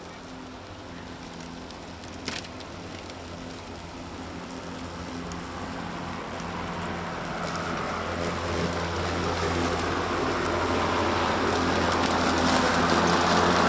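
Battery-powered electric lawn mower running with a steady motor hum and blade noise, growing steadily louder as it comes closer. A few short sharp ticks sound in the first seven seconds.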